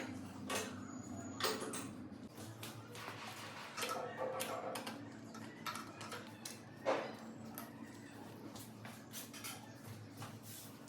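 Irregular metallic clicks and taps of hand tools and parts while a timing chain tensioner adjuster is refitted to a motorcycle engine, over a faint steady hum.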